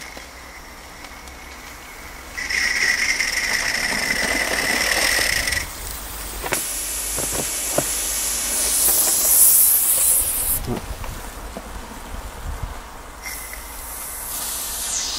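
Mamod Double Fairlie live-steam locomotive venting steam with a loud hiss, at first with a whistling note for about three seconds, then a higher rushing hiss that swells and fades, and returns near the end. A few light knocks come in the middle as the engine is handled in the snow.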